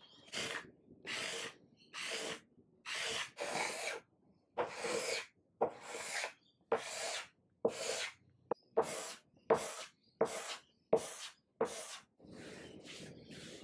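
Hand scraper drawn in repeated short strokes across a wooden table top, lifting off the old gummy finish. The strokes come a little over one a second and get quicker in the second half, with a softer continuous scraping near the end.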